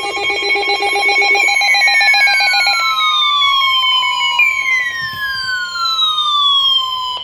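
Electronic emergency alert tones announcing a severe thunderstorm warning: a rapidly pulsing, bell-like buzz for about the first second and a half, then two long falling sweeps, each about three seconds, over a steady tone.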